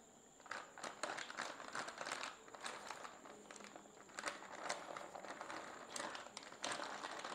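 Faint rustling and crinkling with scattered light taps as maida (all-purpose flour) is handled and tipped out to make the coating powder.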